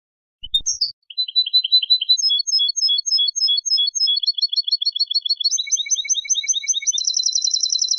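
European goldfinch singing: a string of clear, high chirps and trills, each note type repeated several times, the repeats getting faster until a rapid trill near the end. A brief faint thump just before the song starts.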